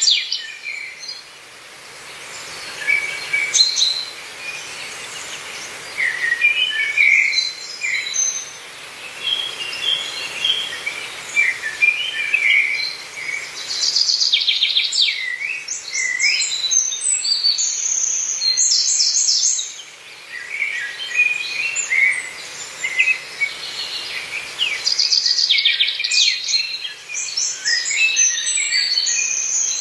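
Several forest birds singing and calling: overlapping chirps, trills and short whistles, busiest about halfway through and again near the end, over a soft steady background noise.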